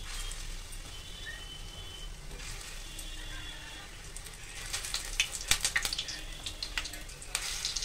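Lumps of bottle gourd and gram flour batter frying in hot mustard oil in a kadhai, with a steady sizzle and sharp crackles. The crackling grows busier and louder past the halfway point as more pieces go into the oil.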